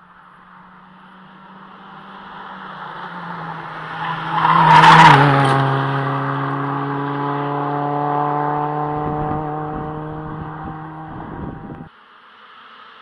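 Hyundai i20 rally car approaching flat out, its engine growing louder, then passing close about five seconds in with a brief rush of tyre noise and a drop in pitch. It pulls away at high revs and fades until the sound cuts off suddenly near the end.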